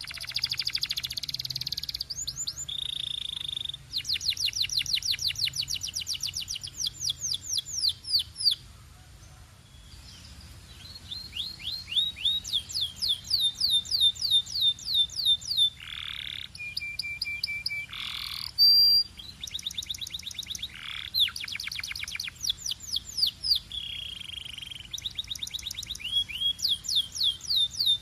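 Canary singing: fast trills of repeated, sharply falling whistled notes, broken by short held flat whistles, with a brief pause about nine seconds in.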